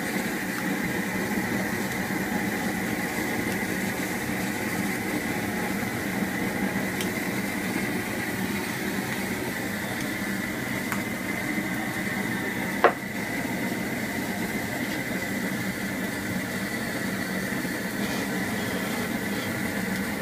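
Propane burner running steadily under a cast-iron skillet of shrimp searing over a very hot fire, with one sharp knock about two-thirds of the way through.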